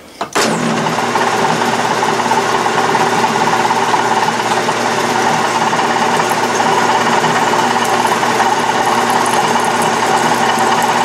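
Metal lathe switching on about a third of a second in and running steadily while a 1/4-inch twist drill in the tailstock chuck bores a blind pilot hole into the spinning aluminium stock, throwing off chips.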